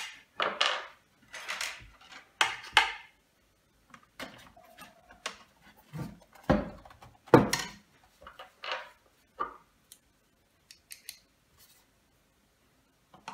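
Plastic case of a FitBit Aria scale clicking, snapping and scraping as its halves are pried apart with wooden chopsticks wedged into the seam. Short sharp snaps come irregularly, the loudest two close together about six and a half and seven and a half seconds in.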